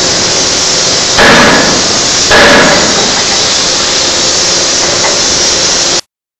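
Electro-hydraulic forging hammer striking red-hot steel twice, about a second apart, each blow a heavy metallic impact that rings briefly, over steady loud noise. The sound cuts out abruptly near the end.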